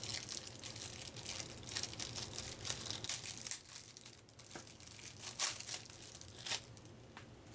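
Plastic wrapping crinkling and tearing as a pack of game cards is unwrapped by hand, with a few sharper crackles late on before it dies down.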